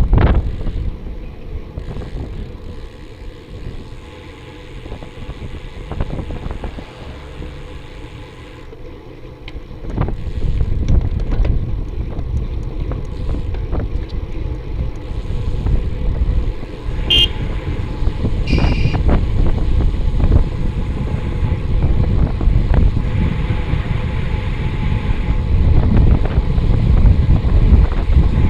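Wind buffeting the microphone of a riding cyclist's camera, with a low rumble, heavier from about ten seconds in. Two short high car-horn honks come about two-thirds of the way through, a second and a half apart.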